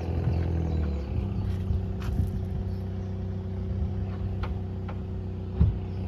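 An engine running steadily at low revs, a low even hum. A short thump comes shortly before the end.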